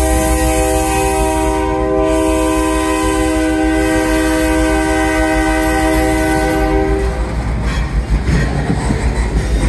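A freight locomotive's air horn sounds one long steady blast that cuts off about seven seconds in. After it, the freight cars can be heard rolling past, with wheels clattering over the rail joints.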